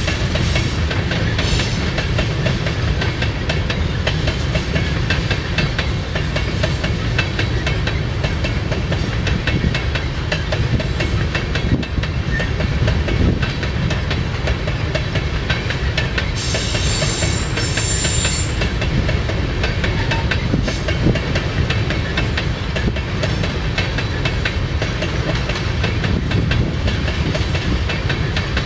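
Freight train of tank cars rolling past: a steady low rumble with wheels clicking over rail joints. A short high wheel squeal comes a little past halfway.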